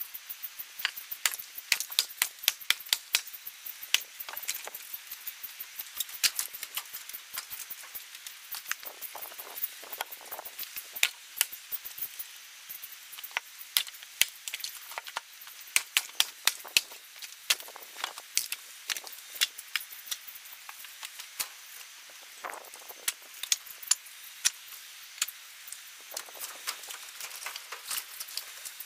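Birch firewood being split with an axe inside a tyre, and the split pieces knocked together as they are handled and stacked: a run of sharp wooden knocks and clacks, with a few fuller thuds among them.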